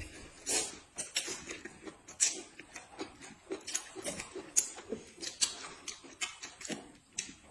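A person eating noisily at close range: chewing and lip smacking, with irregular wet clicks several times a second.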